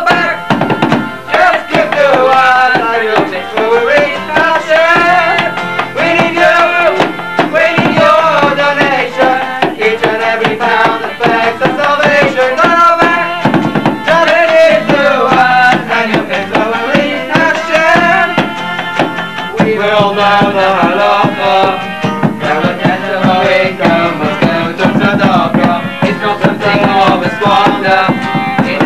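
Lively music: a steady drum beat with a wavering lead melody line over it.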